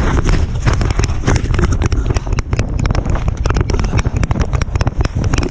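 Strong gusty wind buffeting the microphone: a heavy low rumble broken by many rapid, irregular cracks and pops.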